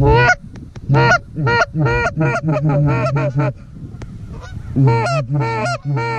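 A flock of geese honking as it flies overhead: many short, overlapping honks, pausing for about a second past the middle before starting again.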